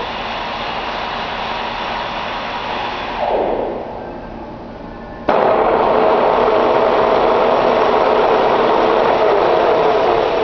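Metal lathe running at speed, its spindle winding down with a falling pitch about three seconds in. About five seconds in there is a click and it is abruptly back at full running speed, running steadily.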